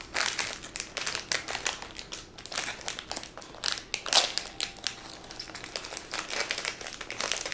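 Crinkly blind-bag toy wrapper crackling in the hands as it is picked up and pulled open, in quick irregular crackles.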